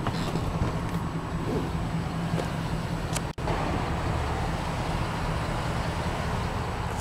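Steady low vehicle hum with background noise, briefly cutting out about halfway through.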